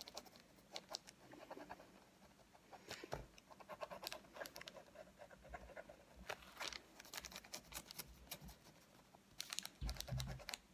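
Ballpoint pen drawing over tracing paper, going round a letter outline: faint, irregular scratching strokes. Near the end there is a louder spell of scratching and paper rubbing with a soft bump.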